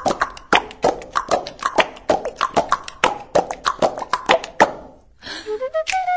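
Music soundtrack: a quick beatbox-style rhythm of sharp clicks and pops, about five a second, which stops about five seconds in. After a brief gap, a melody of held notes begins.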